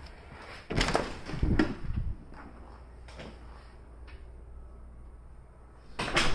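An interior door opening with a clatter and knock of its latch and panel about a second in, then a second door opening near the end.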